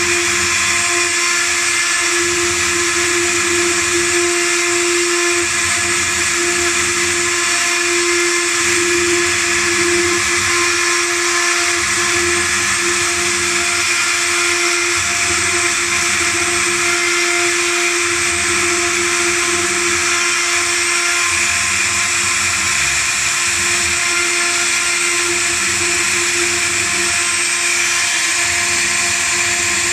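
Six-spindle CNC router carving machine running: its 2.2 kW air-cooled spindles hold a steady pitched whine over a constant hiss of the bits carving relief patterns into board.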